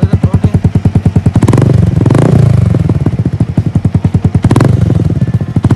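Motorcycle exhaust with a dB killer fitted inside the aftermarket silencer: the engine idles with an even, pulsing beat and is blipped up in revs about a second and a half in and again briefly near the end. The baffle gives a more closed-in, bassier note.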